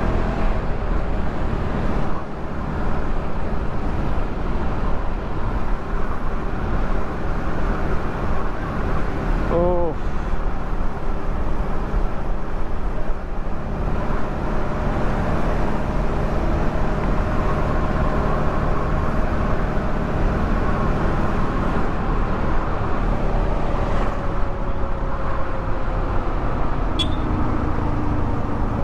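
Yamaha R15 V3's 155 cc single-cylinder engine, on its stock exhaust, running steadily under way, with road and wind noise around it. A horn sounds briefly about ten seconds in.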